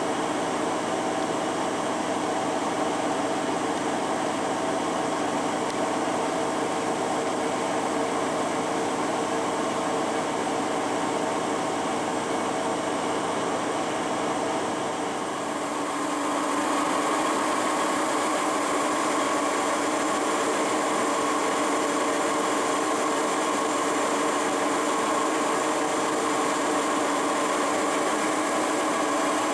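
1969 Lucas horizontal boring mill running under power: a steady mechanical whine from its drive and feed gearing, with several steady tones. About 15 seconds in the sound shifts to a slightly louder, brighter whine.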